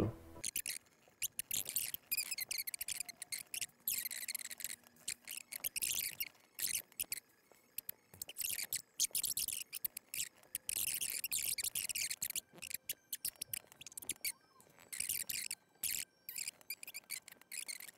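Typing on a computer keyboard: rapid flurries of key clicks broken by short pauses.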